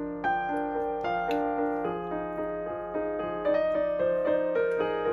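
Background piano music: a calm melody with a new note about every half second.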